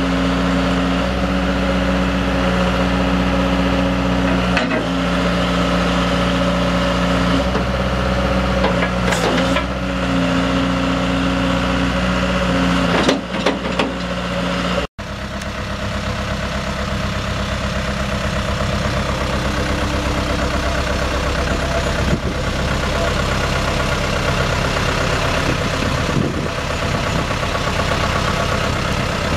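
Sumitomo S160 excavator's diesel engine running with its hydraulics working as the boom and bucket are moved, with a few metallic clanks from the arm and bucket. After an abrupt break about halfway, the engine idles steadily.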